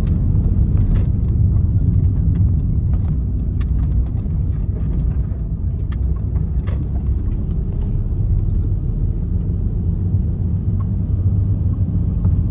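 VW Transporter T5 van driving at road speed: a steady low rumble of engine and road noise, with a few faint light clicks.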